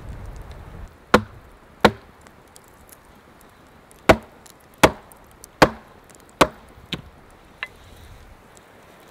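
Axe blows striking a log: two hits, a pause of about two seconds, then a steady run of about six hits, the last two lighter.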